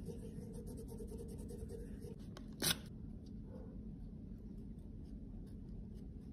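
Cotton pad held in tweezers rubbing and wiping the polished metal of a compact case: a soft scratchy rustle in short strokes. A single sharp click about two and a half seconds in.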